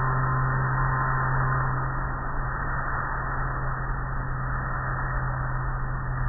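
Automatic car wash working over a car, heard from inside the car: a steady hiss of water spray and soft-cloth curtain strips washing across the hood, over a steady low hum. It eases slightly about two seconds in.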